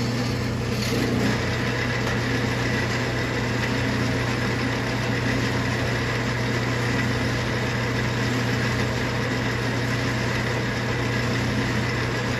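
Metal lathe running steadily at its slowest spindle speed, about 360 RPM: an even low hum with a fainter higher whine.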